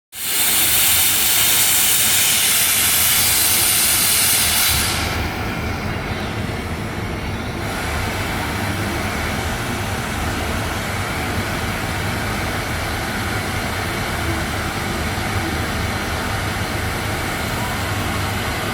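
Oxy-fuel cutting torch of a Messer CNC flame-cutting machine burning through an 80 mm thick plate: a loud high hiss of the gas jet for about five seconds, which then drops away to a steadier, lower rushing noise with a low hum underneath.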